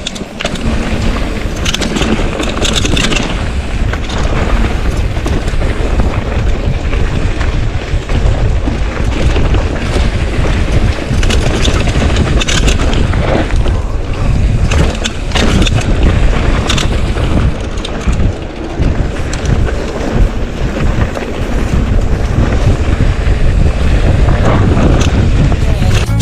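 Heavy wind buffeting on the camera microphone during a mountain-bike ride over a dirt trail, with scattered knocks and rattles from the bike over rough ground.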